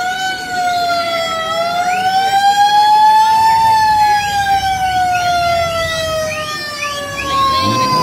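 A siren wailing. Its pitch climbs to a peak a few seconds in, then slowly falls away.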